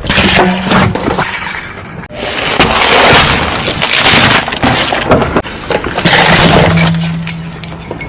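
Loud crunching and breaking as objects are crushed, with a glassy, shattering quality. The sound changes abruptly about 2 s and 5.5 s in.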